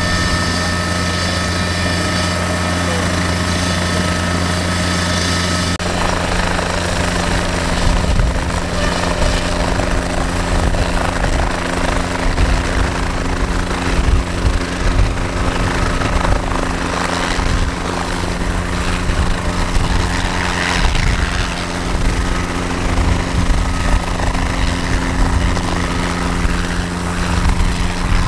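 Light aircraft's piston engine running, with propeller noise. About six seconds in the sound changes abruptly to a different engine drone, with wind gusting on the microphone.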